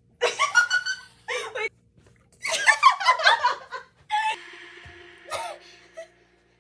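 Young women laughing and shrieking in short, high-pitched bursts, with the loudest stretch in the middle. About four seconds in, a steady held tone starts and runs for about two seconds.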